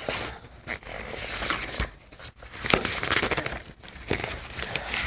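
Irregular rustling and crinkling, with a few short light knocks, from things being handled close by.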